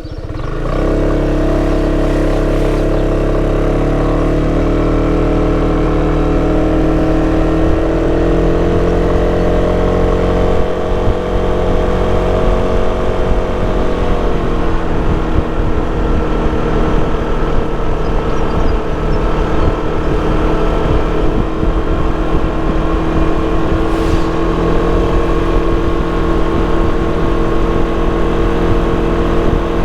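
Sym Cruisym 300 scooter's single-cylinder four-stroke engine and stock exhaust under way. It opens up loudly about a second in and holds a steady drone, then the pitch drops a little about halfway through and it settles into an even cruise.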